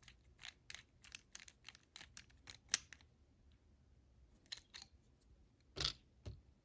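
Faint small metallic clicks of a screw being turned home in a padlock body during reassembly, coming several a second at first, then sparser, with two louder knocks near the end.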